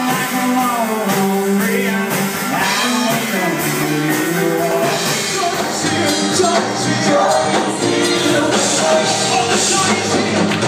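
Live rock band playing, with vocals over guitars and drums. About five seconds in, it cuts to a different live performance: several singers with band accompaniment, singing in a church.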